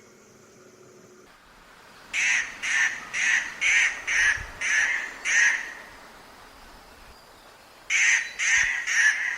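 Treepie giving harsh, grating calls: a run of about seven, roughly two a second, then a pause and three more near the end.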